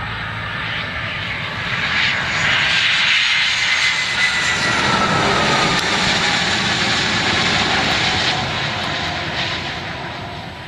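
A-10 Thunderbolt II's twin TF34 turbofan engines as the jet rolls past along the runway. A rushing jet noise swells about two seconds in, with a whine that slides down in pitch as it passes, then fades away toward the end.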